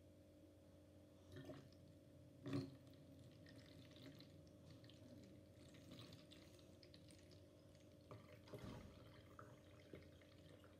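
Faint trickle and drips of liquid running from an upturned plastic bottle into the neck of another plastic bottle. A few soft knocks come from handling the bottles, the loudest about two and a half seconds in and another cluster near the end.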